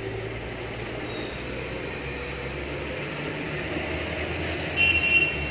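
Road traffic noise with a motor vehicle's engine running as a steady low hum, and a brief high-pitched sound near the end.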